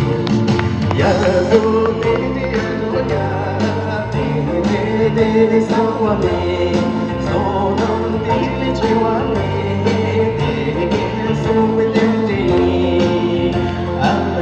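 A singer performing a Tibetan song with sustained, gliding melody lines over a backing track with a steady beat.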